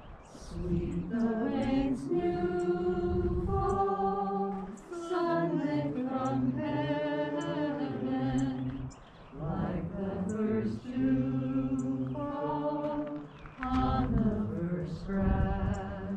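Voices singing a hymn unaccompanied, in held notes and phrases broken by short pauses for breath.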